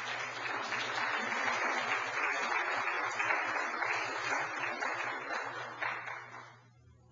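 Audience applauding, a dense patter of many hands clapping that starts at once and dies away about six and a half seconds in.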